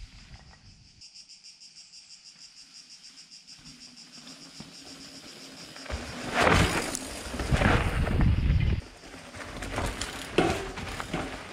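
High-pitched insects chirring in a fast, even pulse. From about six seconds in, a mountain bike rides past close by on a dirt trail, with tyres crunching and the bike rattling. Another pass near the end comes with a sharp knock.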